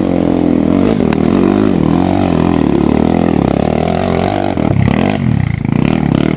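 Dirt bike engine revving loudly and unevenly, its pitch rising and falling as the throttle is worked, with a brief drop and pick-up about five seconds in.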